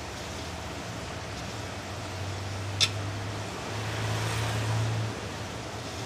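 Hand spreading coloured aquarium sand in a glass tank: one sharp click about three seconds in, then a soft rustle of sand a second later, over a steady low hum.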